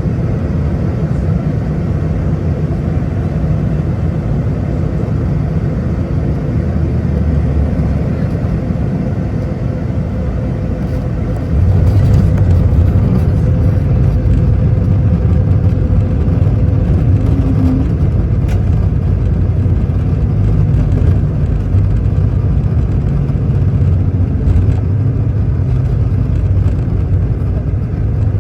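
Steady low rumble inside an Airbus A220-300 cabin, which steps up suddenly about a third of the way in and stays louder.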